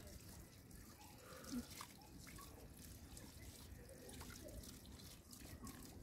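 Faint water dripping: a few irregular drops over a low background hiss.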